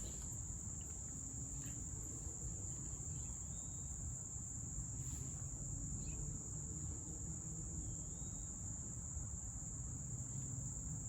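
Crickets chirring in a steady, unbroken high trill, over a low background rumble, with a few faint clicks.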